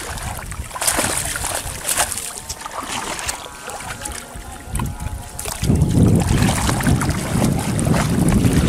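Water sloshing and splashing as a man wades through shallow water hauling in a cast net. About two-thirds through it grows louder, with a heavy low rumble under the splashing as the net comes up with fish churning the water.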